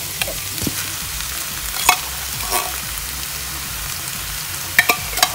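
Browned ground beef and onion sizzling in a skillet, with a few sharp spoon clicks and scrapes as condensed cream of mushroom soup is spooned out of the can into the pan, two about two seconds in and a quick cluster near the end.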